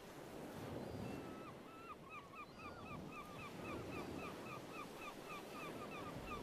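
A flock of birds calling: a fast run of short, hooked calls, about four a second, over a steady rushing background that slowly grows louder.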